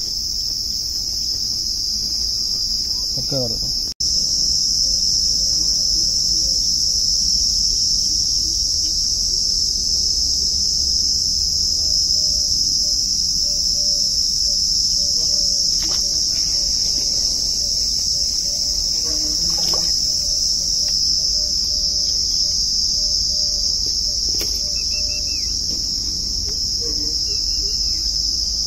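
Steady, high-pitched insect chorus that cuts out for an instant about four seconds in, with a few faint bird chirps near the end.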